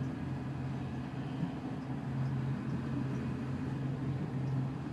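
A steady low machinery hum with a fainter, higher hum above it, from the boat's onboard equipment heard inside the cabin.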